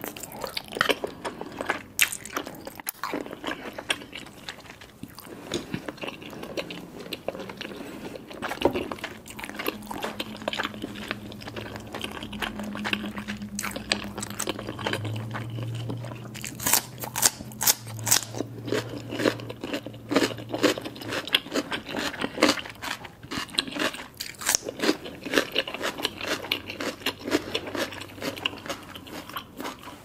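Close-miked eating: wet chewing of chewy rice cakes and saucy noodles, then from about halfway through, crisp crunching bites of raw cucumber. A low steady hum is heard partway through.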